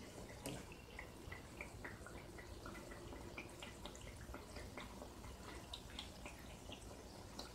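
Spinach and urad dal vadas deep-frying in a kadai of hot oil on medium heat: a faint sizzle with scattered small pops and crackles of bubbling oil.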